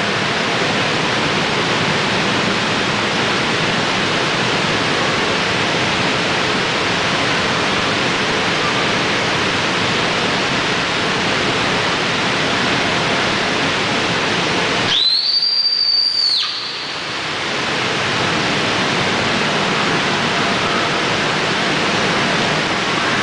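Steady rushing noise of the air blowers that keep inflatable bouncy castles and slides inflated. About fifteen seconds in, a single high whistle-like tone, rising slightly, sounds for about a second and a half.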